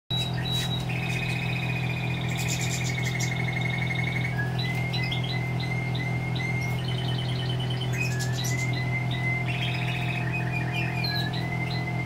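Caged canaries and European goldfinches singing: long rapid trills and runs of repeated chirping notes, over a steady low hum.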